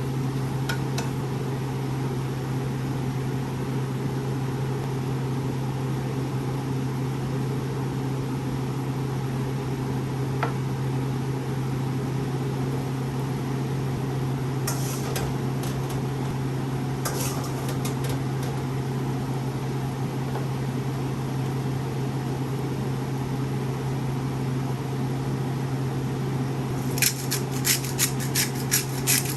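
Steady low hum of a running kitchen appliance, with a couple of light clinks in the middle and a quick series of sharp clicks near the end.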